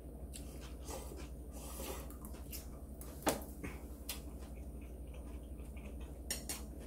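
Quiet eating sounds over a steady low hum: chewing, with chopsticks clicking now and then against dishes; the sharpest click comes about three seconds in.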